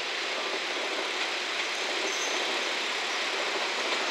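JNR KiHa 47 two-car diesel railcar running past along the station tracks: a steady rushing of its running gear on the rails.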